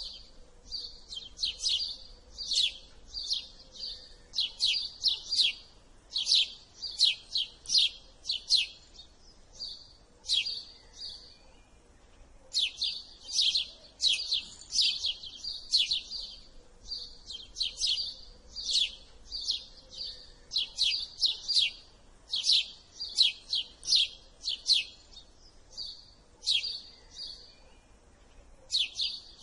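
House sparrow chirping: runs of short, sharp, high-pitched cheeps, a few a second, broken by brief pauses.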